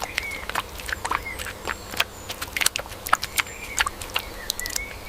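Hand tool working garden soil: irregular light knocks and scrapes, several a second, with faint short bird chirps now and then.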